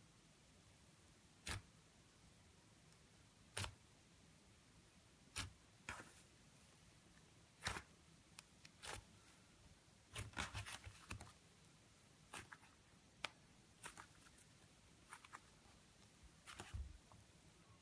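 Textured homemade slime being handled: scattered sharp clicks and crackles, a quick run of them about ten seconds in.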